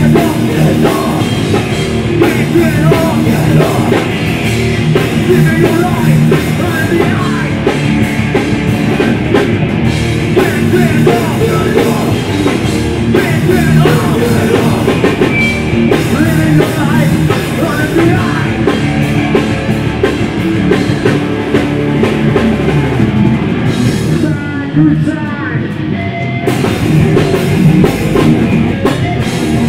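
Hardcore punk band playing live: distorted electric guitars, bass and drums with shouted vocals. About 24 seconds in, the band thins out for about two seconds, then the full band comes back in.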